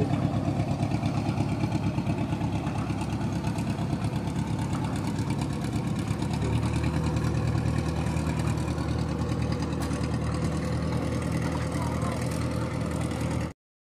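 Mitsubishi PS 120 truck diesel engine driving a long wooden boat, running steadily; its note changes about six and a half seconds in, and the sound cuts off abruptly just before the end.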